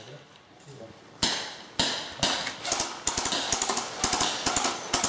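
Airsoft guns firing. A few single shots come about half a second apart starting about a second in, then a quicker string of shots follows in the second half, each a sharp snap with a short echo.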